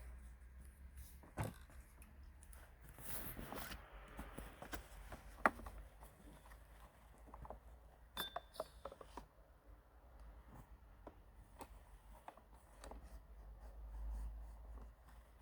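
Faint scattered clicks and knocks, as of small parts or tools being handled, over a low steady hum. There is a short rustle about three seconds in.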